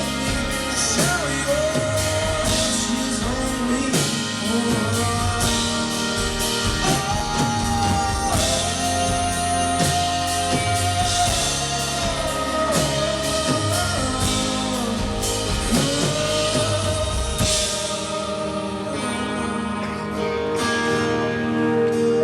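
Live band playing a song's outro: wordless singing gliding over guitar and drum kit. The drums drop out about three-quarters of the way through, leaving softer held chords.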